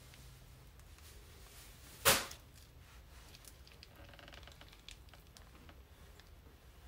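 Quiet room tone with a few faint small clicks, and one sharp knock about two seconds in.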